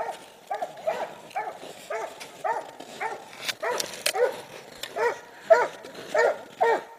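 Treeing Walker coonhound barking at the tree, a steady run of short chop barks at about two a second, the hound's signal that it has game treed.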